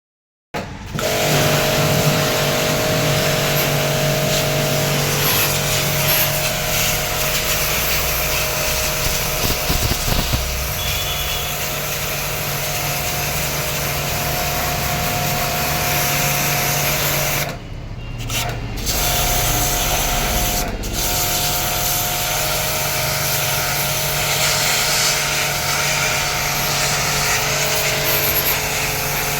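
Washing machine running: a steady motor hum with fixed tones over a noisy churn, briefly dropping out about 17 to 18 seconds in.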